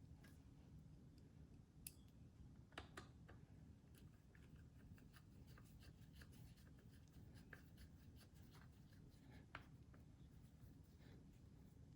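Faint scattered clicks and scratching of a screwdriver turning screws into the metal housing of an LED par light, with a few sharper clicks.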